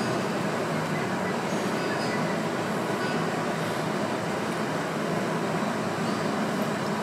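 Steady, even background room noise, a continuous hiss and low rumble with no distinct events.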